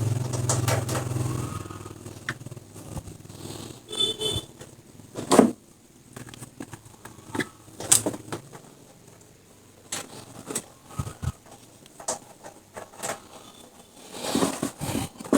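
Spun laundry being pulled out of a twin-tub washing machine's spin tub and dropped into a bucket: scattered rustles, scrapes and light knocks with short pauses between them. A low hum runs during the first second or two.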